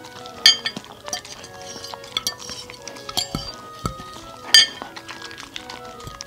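A metal fork clinks against a ceramic plate: a sharp clink about half a second in, a louder one near the end, and a few lighter taps between. Soft sounds of a dog licking and chewing food off the plate run underneath.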